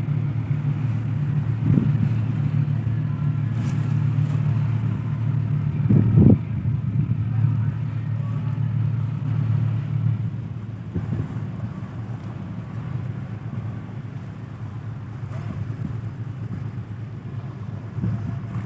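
Marine diesel engines give a steady low drone while a passenger ship is pulled off its berth by a tugboat. The drone eases about ten seconds in. Two dull thumps come through it, the louder one about six seconds in.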